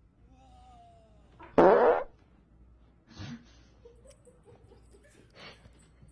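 A loud fart of about half a second, a little under two seconds in, from the person a small dog is lying on.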